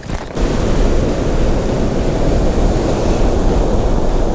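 Ocean surf breaking on a sandy beach, with wind buffeting the microphone: a steady rushing with a heavy low rumble that comes in abruptly about half a second in.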